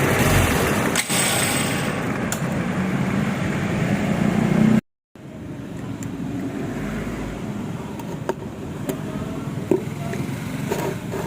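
Motorcycle engine running, loud and building for the first few seconds. After an abrupt cut it runs quieter, with a few sharp clicks scattered through it.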